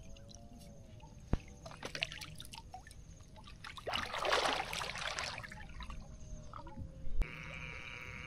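Water dripping and draining from a mesh shrimp trap lifted out of a pond, loudest about four to five seconds in. A sharp knock comes near the end, and after it a steady high hiss sets in.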